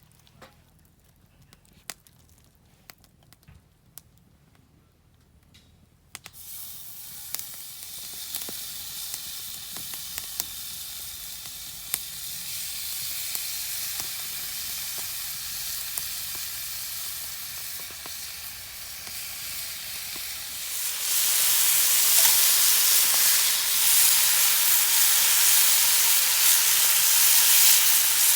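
A few light clicks, then food starts sizzling on a hot pan about six seconds in, and the sizzling grows clearly louder about twenty seconds in.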